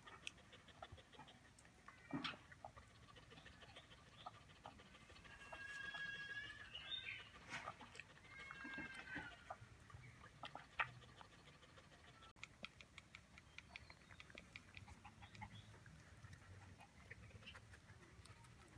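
Puppies suckling from their mother: faint, irregular wet smacking and clicking. A few short, high-pitched calls come around six seconds in and again around nine seconds in.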